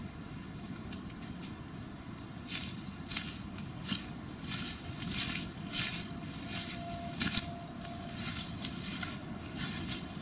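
Footsteps rustling and crunching through fallen leaves on a forest path, starting about two seconds in at roughly one and a half steps a second, over a low steady rumble.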